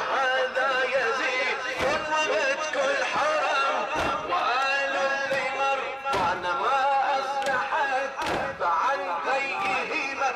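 A male radood (Shia elegy reciter) chanting a latmiya lament into a handheld microphone over a PA. A collective thud lands about every two seconds, the mourners' chest-beating (latm) keeping time.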